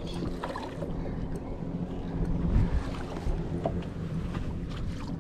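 Wind on the microphone over a steady low hum in a small fishing boat, with scattered knocks and splashes as a hooked largemouth bass is brought in at the boatside.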